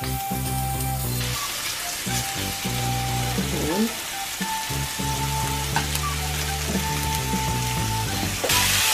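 Flour-dredged beef steaks sizzling in hot oil in a stainless steel frying pan, a steady hiss that grows about a second in and gets louder again near the end. Background music with held tones plays underneath.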